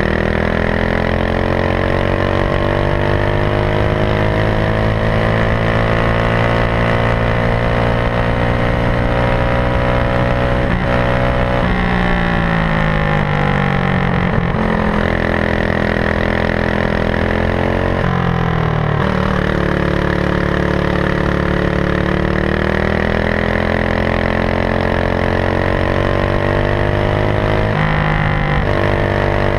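Racing kart engine heard up close from on the kart, pulling hard with its pitch climbing steadily along the straights. It drops sharply each time the throttle is lifted for a corner, about four times, and then climbs again.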